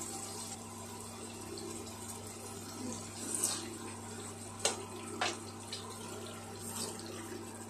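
Boiled chickpeas being tipped into a pan of fried onion-and-spice masala: a soft, steady wet hiss, with a few sharp clinks of utensils against the pan in the middle.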